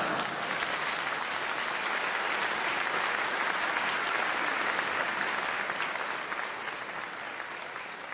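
Theatre audience applauding after a punchline, steady throughout and beginning to fade near the end.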